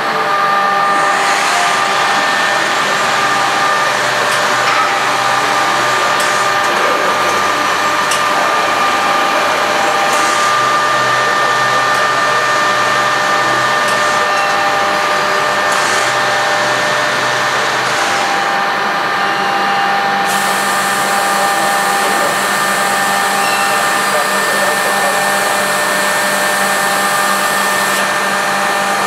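Weeke Venture 108M five-axis CNC machining centre running: the spindle gives a steady whine of several held tones over constant machine noise, and a low hum comes and goes in the first half. A brighter hiss joins about two-thirds of the way in and stops shortly before the end.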